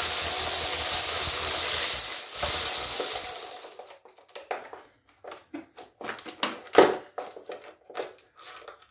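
A ratchet tool undoing the bolts that hold the recoil starter on a Mariner 9.9 four-stroke outboard: a fast continuous ratcheting rattle for about four seconds, then separate clicks and knocks.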